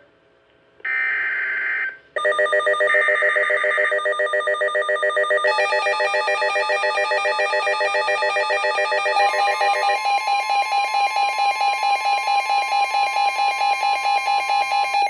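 Weather radio sounding an alert: a short buzzing burst of the SAME digital header, then, about two seconds in, the radio's loud, rapidly pulsing multi-tone alarm. The alarm changes its pattern twice and is joined by a steady warning alarm tone, signalling a severe thunderstorm warning.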